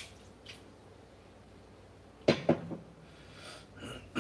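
A man coughing twice in quick succession about two seconds in, over faint room tone.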